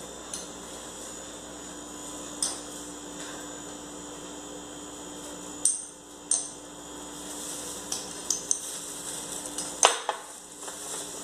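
Scattered light clinks of a metal spoon against small glass spice jars and glass bowls, the loudest near the end, over a steady low hum.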